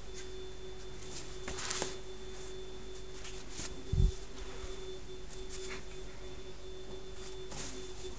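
A steady, faint electronic-sounding hum tone with soft scattered rustles, and one short low thump about four seconds in.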